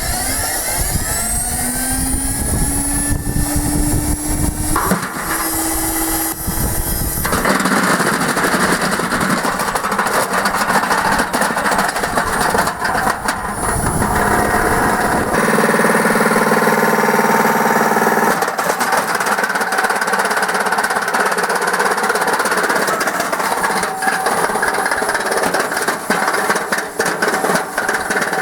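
Beko washing machine's drum motor speeding up with a rising whine, then the machine spinning hard with loud, continuous rattling and banging from about seven seconds in.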